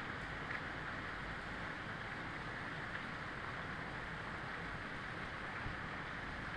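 Steady rain falling, an even hiss with a low rumble beneath it and a few faint drop ticks.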